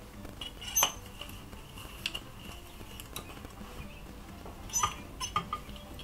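A handful of light metallic clicks and clinks, spread out, from a curling iron being handled while curling hair; the loudest comes about a second in, and several come close together near the end.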